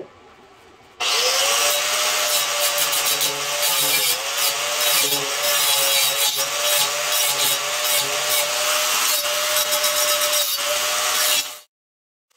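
Electric angle grinder running with its disc against steel plate: a steady motor whine over a harsh grinding hiss, the pitch wavering slightly as the disc bites. It starts about a second in and cuts off shortly before the end.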